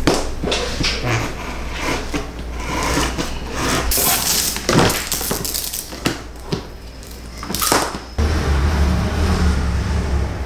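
Knife cutting a 15 mm strap along a steel-reinforced cardboard guide on a wooden workbench, with scrapes, taps and rustles of the strip being handled. About eight seconds in, this gives way to a steady low hum.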